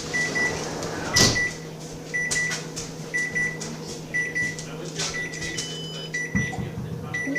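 Microwave oven running with a steady hum while a chicken nugget cooks inside it for a long time. A short high beep repeats about once a second, and there is a sharp knock about a second in and a dull thud near the end.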